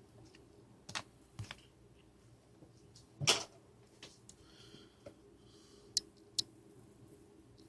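Scattered clicks and knocks of the plastic housing of a D-Link DAP-1650 range extender being handled and pried open, with the loudest knock about three seconds in.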